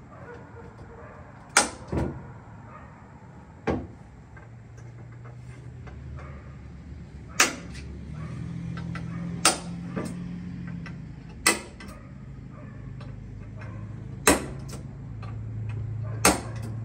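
Sharp metal knocks, about eight of them one to three seconds apart, as the aluminium fuel cell's mounting plates and hardware are handled in the Jeep's rear tub. A low steady hum runs underneath and grows louder in the second half.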